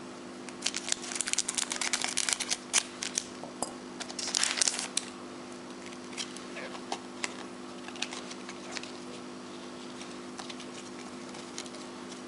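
Foil wrapper of a trading-card pack crinkling as it is opened: dense crackling in the first few seconds and a louder burst about four seconds in. Scattered light ticks follow as the cards are handled.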